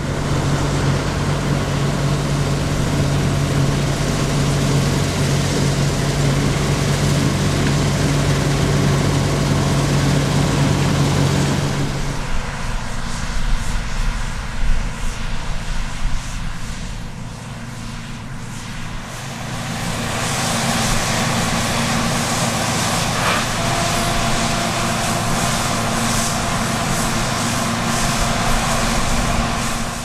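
Diesel engines of grain-harvest machinery (combine harvesters and tractors) running steadily under load. The engine note changes abruptly about twelve seconds in, and a different engine sound takes over from about twenty seconds in.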